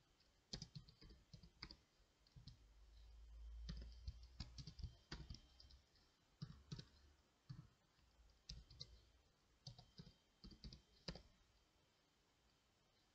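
Computer keyboard keys clicking faintly in short irregular runs as code is typed, stopping near the end. A low rumble swells and fades around three to four seconds in.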